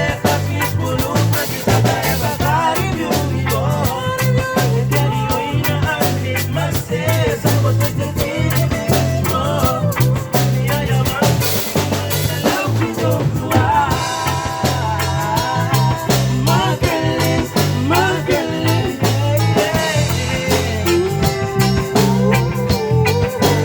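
Live band playing an instrumental passage with a steady beat: drum kit, bass and melodic lead lines.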